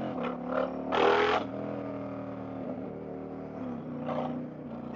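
The 2023 Indian Challenger's 108 cubic inch V-twin, fitted with stage 2 cams and an aftermarket exhaust, running under way at a fairly steady throttle, its pitch shifting slightly a couple of times.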